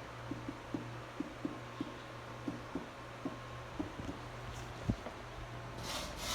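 Arno Ultra Silence Force electric fan running with a steady low hum and soft, irregular knocks about two or three times a second. There is one louder knock about five seconds in and a short rush of noise near the end.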